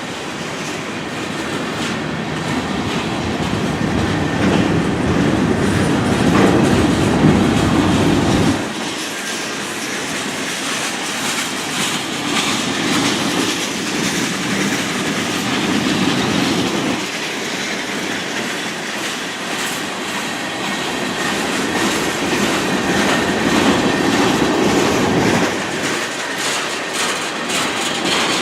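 Freight train rolling past, its wheels clicking over the rail joints with some squeal. A deeper rumble swells and then drops off suddenly twice, about eight seconds in and near the end.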